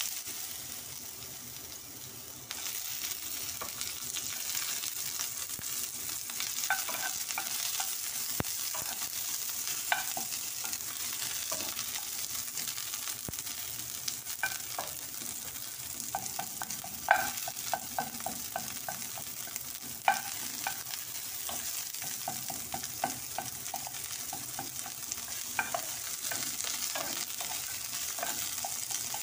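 Chopped garlic and sliced red onion sizzling in hot cooking oil in a pan, the sizzle growing louder a couple of seconds in. A wooden spatula stirs them, scraping and tapping against the pan now and then.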